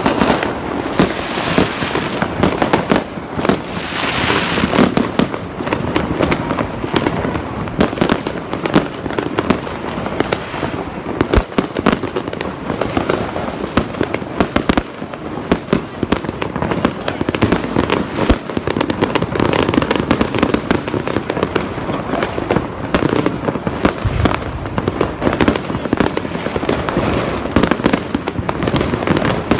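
Fireworks going off in a dense, nonstop barrage of sharp bangs, many a second, with aerial shells bursting overhead.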